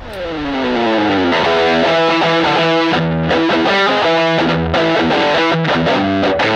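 Background rock music with distorted electric guitar, opening with a downward pitch slide over the first second and then moving into held, distorted notes.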